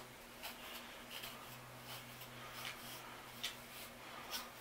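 About half a dozen faint, short rustles of a small hairbrush stroking through hair, over a low steady hum.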